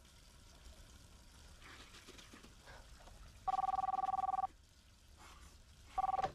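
Landline telephone ringing with a steady two-tone electronic ring: one ring of about a second, then a second ring starting near the end.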